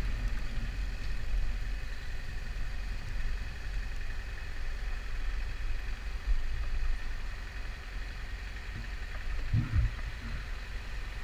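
Motorcycle engine idling steadily as the bike rolls slowly to a stop at a traffic light, picked up by a helmet-mounted microphone with a low rumble. There is a brief low knock about nine and a half seconds in.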